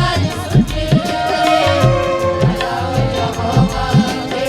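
Instrumental passage of a Punjabi devotional song: Indian hand drums play a steady rhythm of low strokes that bend up in pitch, under a held, wavering melody line.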